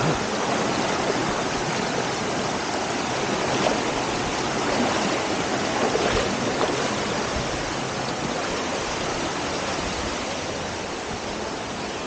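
Shallow stream rushing over boulders and rock slabs in a small cascade: a steady, close hiss of flowing water.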